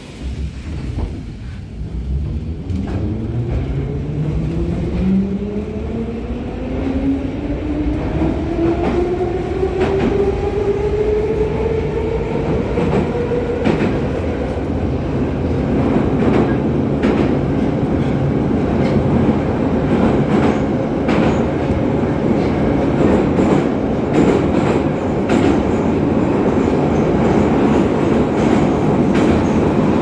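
81-717.5P metro train accelerating away from a station, heard inside the car: the traction motors' whine rises steadily in pitch for about the first dozen seconds, then levels off as the train runs at speed into the tunnel. Under it the wheels rumble and click over the rail joints.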